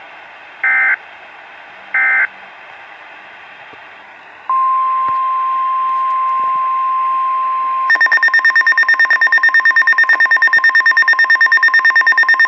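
Two short bursts of SAME digital alert-header data, then from about 4.5 s a single steady 1050 Hz weather-radio warning alarm tone. About 8 s in, this changes to a rapid, evenly pulsing beeping alarm of two pitches, several beeps a second, signalling an incoming weather warning.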